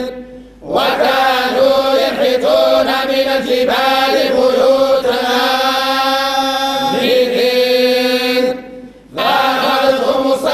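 A group of men reciting the Quran in unison in the Moroccan collective hizb style (tahazzabt). It is a slow, melodic chant held on a steady pitch with gliding ornaments. The voices stop for a breath twice: just after the start and again about three-quarters of the way through.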